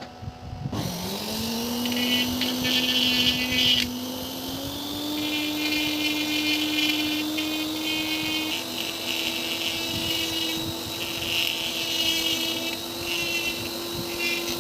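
Small electric motor of a homemade machine switching on and spinning up, its hum rising in pitch and then settling into a steady whine that steps up twice. Over it come on-and-off high rasping noises, like something rubbing or cutting against the spinning part.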